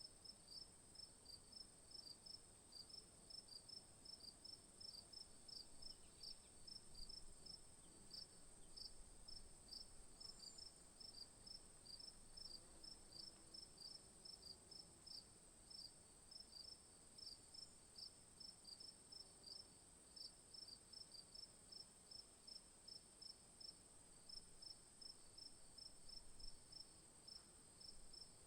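Faint crickets chirping in an even rhythm, about three chirps a second, over a continuous high-pitched insect trill.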